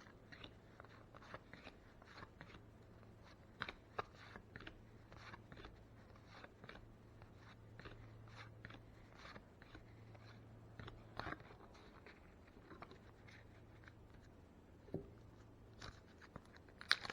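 Faint, scattered crinkles and clicks from a 1987 Leaf baseball card wax pack and its cards being handled and flipped through.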